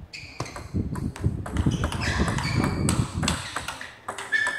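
Table tennis serve and rally: a quick run of sharp clicks as the ball strikes the rackets and the table, with a few short shoe squeaks on the court floor.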